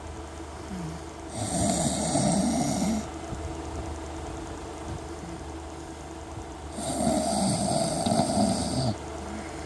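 A man snoring: two long snores, each lasting about two seconds and about five and a half seconds apart, over a steady low hum.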